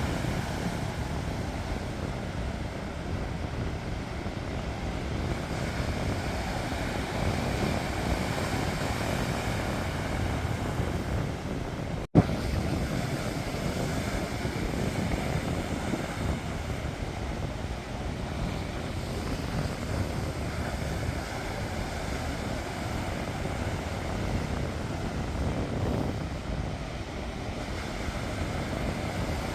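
Sea waves washing ashore as a steady rumbling wash, with low wind rumble on the microphone. Briefly cuts out with a click about twelve seconds in.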